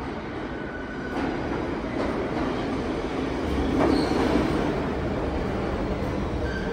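R46 subway train running into an underground station: a steady rumble of wheels on rail that swells as it reaches the platform, with a short high wheel squeal about four seconds in.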